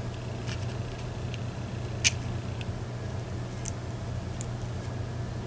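A few light, sharp clicks of small metal lock parts being handled, the clearest about two seconds in, over a steady low hum.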